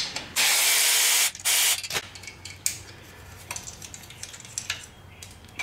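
Power ratchet spinning off the half-inch nut on a motorcycle's stock exhaust header bracket, with an even hiss in two runs: about a second, then half a second. Light metal clicks follow as the loosened nut and bracket are handled by hand.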